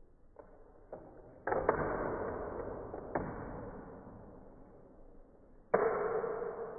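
Two whooshing sounds, each starting suddenly and fading out over a second or more, with a couple of light knocks before the first and a sharp click between them.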